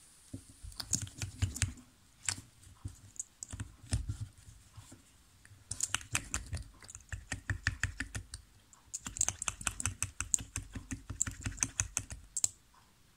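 Plastic lip gloss tube being worked by hand, its cap and wand pushed in, pulled and twisted: quick runs of small clicks and taps, in several bursts with short pauses between them.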